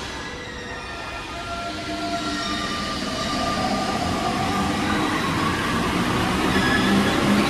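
A rubber-tyred Paris Métro line 14 train arriving at the platform, its motors whining in several tones that slide down in pitch as it slows, getting steadily louder as it comes in.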